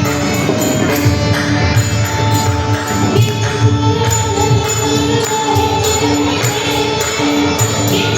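Devotional group singing in Warkari style over a steady beat of jingling metal percussion.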